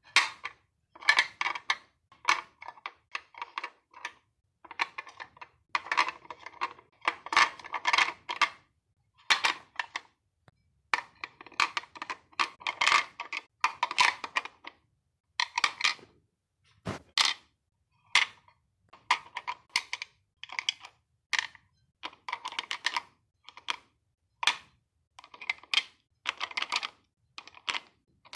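Natural stones clicking and clacking against each other and on a surface as they are picked up and set down in a row, in irregular clusters of taps with short pauses between. A single sharper, heavier knock comes a little past the middle.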